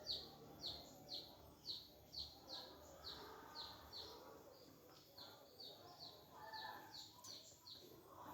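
A bird repeating a short, high, falling chirp about twice a second in a steady rhythm, the calls growing fainter after a few seconds.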